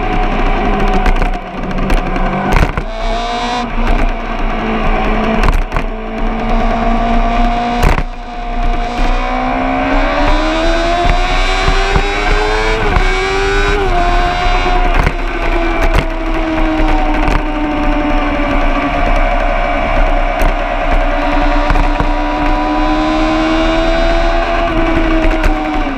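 Vehicle engine running hard at high revs, its pitch climbing and falling repeatedly with an abrupt change about 14 seconds in, with scattered knocks and clatter over it.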